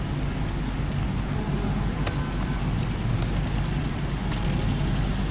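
Computer keyboard keys clicking as a word is typed: a string of irregular sharp keystrokes over a steady low hum.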